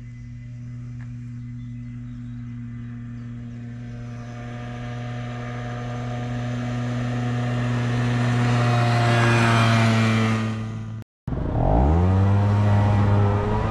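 Kymco Agility 50cc scooter riding up and passing by, its small engine's drone growing steadily louder and dropping slightly in pitch as it goes past. After an abrupt cut, the same engine is heard from on board, its pitch rising as it accelerates.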